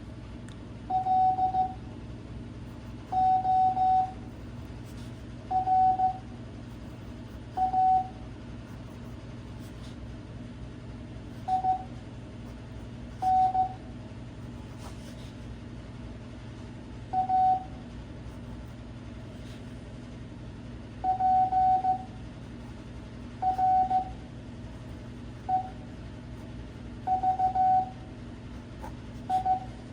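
Morse code (CW) practice audio at 5 words per minute: a single steady beep tone keyed into dots and dashes, one character at a time with a gap of a second or two between characters, over a steady low hum.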